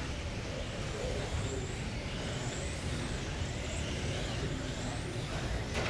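Electric 1/12-scale GT12 radio-controlled cars racing on a carpet track, their motors whining up and down as they accelerate and brake, over the echoing hum of a large hall. A sharp click comes near the end.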